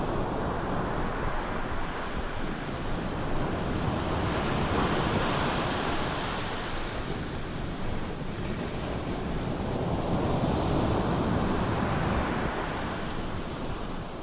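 Ocean surf breaking and washing up a sandy beach, a steady rushing that swells twice and eases back, with some wind.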